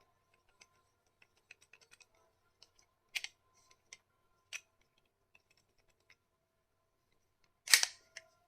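Plastic clicks and snaps of a shell-ejection toy pistol being handled, a few sharper clicks among small ones, and one loud snap near the end.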